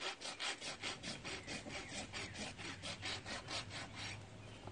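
Quick scraping strokes on a horse's hind hoof, held up off the ground, about five strokes a second. The scraping stops about four seconds in.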